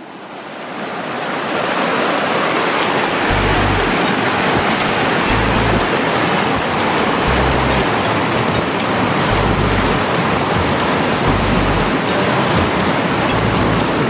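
Rushing mountain stream, swollen with recent rain, as a steady loud rush that swells up over the first couple of seconds. Low rumbles recur underneath about every two seconds.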